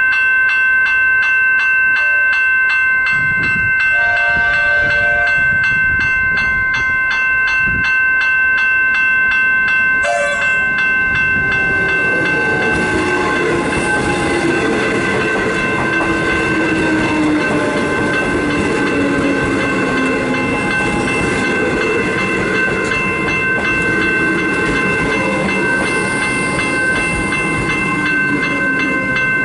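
Level crossing warning bells ringing with a fast, steady repeating strike. About twelve seconds in, an electric suburban train passes: its rumble builds under the bells, with a slowly falling whine.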